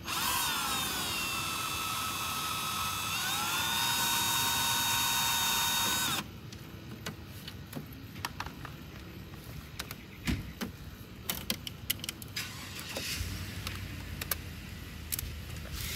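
Handheld power drill backing out a license-plate screw: the motor whines for about six seconds, its pitch sagging and then stepping back up about three seconds in, before it stops suddenly. Small clicks and taps follow as the loosened plate and screws are handled.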